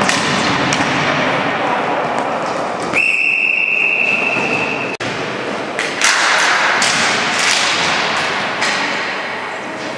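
Ball hockey play on a hard arena floor: sharp clacks and thuds of sticks and ball over the shouts of players and spectators. A steady whistle blast of about two seconds comes about three seconds in and cuts off abruptly.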